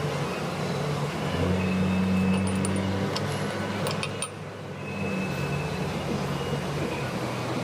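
Steady low machine hum, louder for about a second and a half near the start, with a few sharp clicks in the middle.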